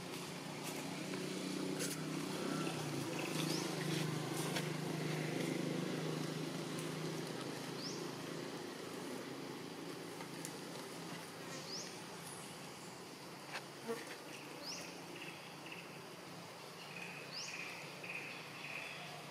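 Forest ambience: a wavering buzzing hum in the first half that fades out by about halfway, with a short high rising chirp repeating every two to three seconds and a brief run of pulsed calls near the end.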